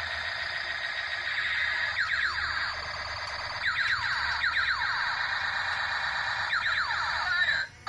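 Battery-operated plastic transforming aircraft-and-tank toy playing its electronic sound effects through its small speaker: a loud buzzy electronic drone with repeated siren-like sweeping tones. It cuts off suddenly near the end.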